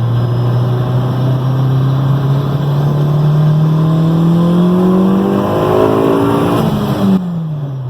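Supercharged 2014 Honda Civic Si's 2.4-litre four-cylinder engine, with a catted downpipe, pulling under hard acceleration in one gear. The engine note rises steadily for about seven seconds, then falls away near the end as the throttle is lifted.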